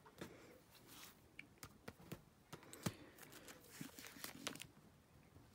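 Faint handling of a baseball card and the plastic sleeves of a card binder: soft rustling with scattered light clicks, the sharpest nearly three seconds in.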